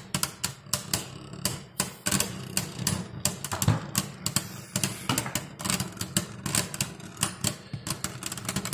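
Two Beyblade Burst spinning tops battling in a plastic stadium bowl. They give rapid, irregular clicking and clacking as they collide and rattle against each other and the stadium.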